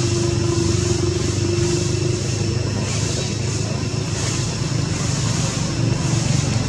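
Steady low engine-like hum, as of a running motor or nearby traffic, with a continuous high hiss above it that swells faintly now and then.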